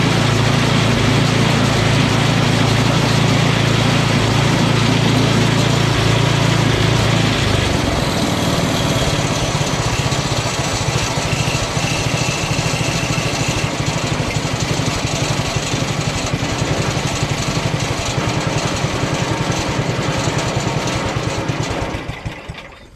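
Briggs & Stratton 8 hp single-cylinder engine of a 1985 Toro 826 two-stage snowblower running. Its steady note changes about a third of the way in and turns rougher. Near the end the engine is shut off and runs down.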